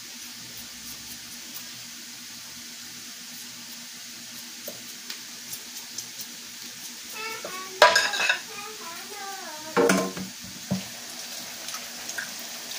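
A potato being peeled by hand over a sink, with light scraping ticks from the blade, and two loud clatters of dishes about eight and ten seconds in. A low steady hum sits under it.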